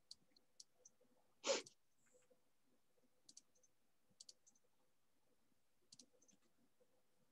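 Near silence with scattered faint clicks, a few in quick pairs, and one brief louder noise about a second and a half in, over a faint steady hum.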